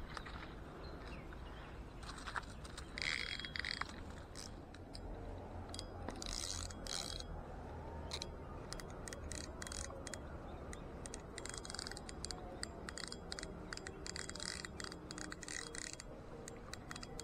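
Spinning reel being wound to bring in a hooked fish: quick ticking clicks from the reel and rustling of handling, in several short runs with pauses between.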